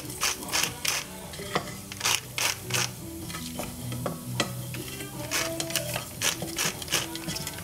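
Wooden spatula stirring sunflower seeds toasting in oil in a stainless steel saucepan: irregular scraping strokes, several a second, over a light sizzle.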